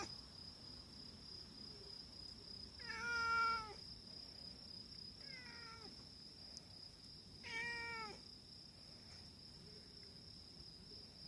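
Stray cat meowing three times, a few seconds apart, the first the loudest and the second faint, over a steady high-pitched whine.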